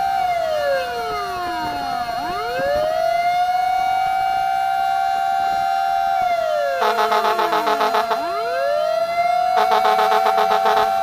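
Fire truck sirens sounding together. One wail drops slowly to a low growl and sweeps back up, twice. Over it, a rapid pulsing siren tone cuts in twice in the second half.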